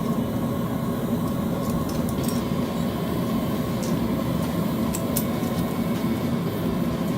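A forge running steadily while a steel blade heats inside it for hardening, with a few faint ticks.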